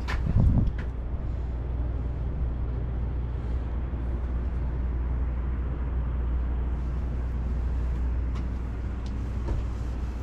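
Wind buffeting the microphone: a steady low rumble, with a louder gust about half a second in.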